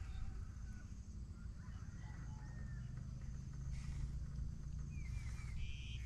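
Quiet outdoor ambience: a steady low hum with a few faint bird chirps, ending in a quick run of three short chirps about five seconds in.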